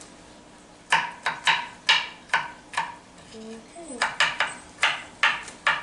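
Kitchen knife chopping garlic on a cutting board: two runs of quick, sharp strokes, about two to three a second, with a short pause between them.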